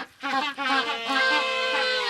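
A group of penguins calling, several pitched calls overlapping, with one long held call from about half a second in that bends down and breaks off near the end.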